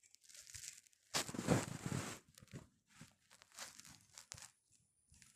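Irregular rustling and scraping noises with scattered clicks, loudest in a burst of about a second shortly after the start.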